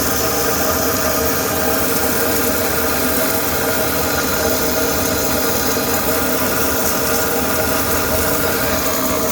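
Pressure washer running steadily, a constant motor-and-pump hum under the hiss of water, as its jet is driven into a blocked car exhaust pipe to flush debris out of the restriction.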